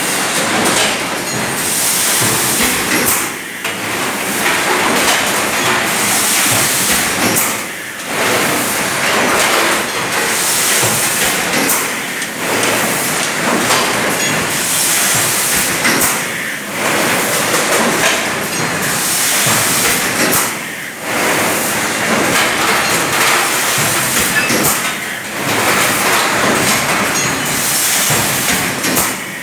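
Mineral water bottling line running: a loud, steady, mechanical noise with a hiss, dipping briefly about every four seconds in a regular cycle.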